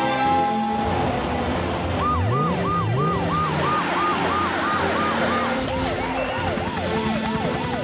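Cartoon emergency-vehicle sirens, a fast, repeating rise-and-fall wail of about three cycles a second, joined by a second, quicker and lower siren about six seconds in, over background music. A steady tone sounds for the first second, and an engine revs up about two seconds in.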